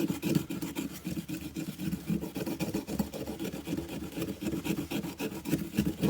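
Saw teeth on the spine of a Broc Tracker knife rasping back and forth over a green stick, stripping off the bark in quick, even strokes.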